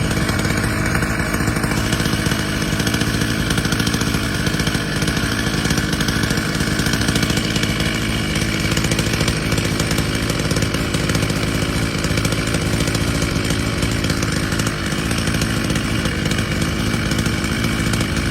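Chainsaw engine running steadily at an even pitch.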